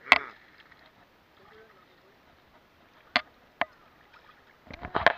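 Sea water slapping and splashing against a waterproof action camera held at the water's surface: a sharp splash at the start, two more about three seconds in, and a quick run of splashes near the end.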